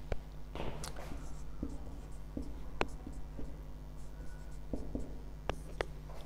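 Marker pen writing on a whiteboard: short strokes and sharp taps of the tip against the board, over a steady low hum.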